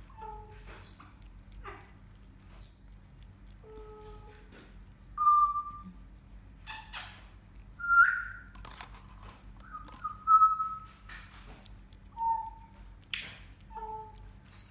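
A series of short whistled notes, each a fraction of a second long and held at one pitch, jumping between low, middle and high pitches with gaps between them. Faint wet clicks of a cat licking yoghurt off a spoon come in between the notes.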